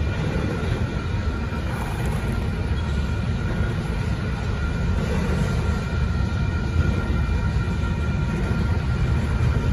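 Union Pacific double-stack intermodal train's well cars rolling past steadily: a continuous low rumble of steel wheels on rail, with faint steady high tones above it.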